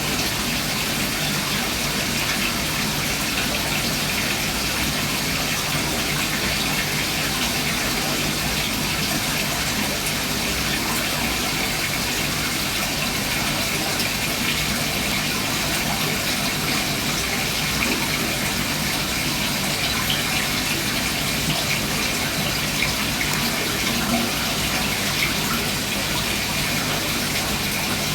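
Aquarium water circulating: a steady, unbroken rush of splashing water with a faint low hum underneath.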